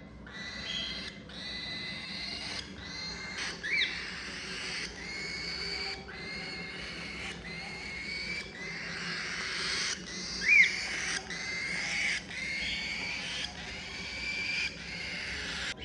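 Cockatiels calling: a steady run of short repeated calls, about one and a half a second, broken by two sharp chirps, the louder one about two-thirds of the way through.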